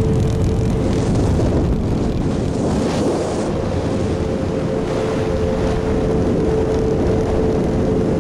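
Motorboat engine running steadily under way, a steady hum beneath heavy wind noise on the microphone.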